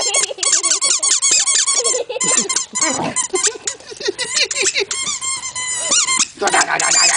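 Rubber squeaky fish toy squeaking rapidly over and over as a dog chews it, with a short break about six seconds in and a longer drawn-out squeak near the end.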